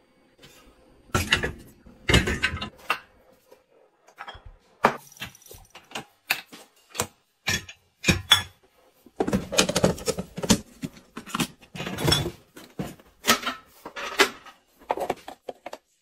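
Groceries being handled and loaded into a car trunk: plastic-wrapped bags of carrots crinkling and rustling, a paper bag rustling, and a few dull thumps as items are set down.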